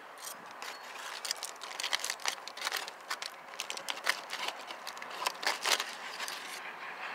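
Aluminium foil crinkling and crackling as a knife slices a cooked steak lying in it: a quick, irregular run of small clicks and crackles, busiest a little past halfway.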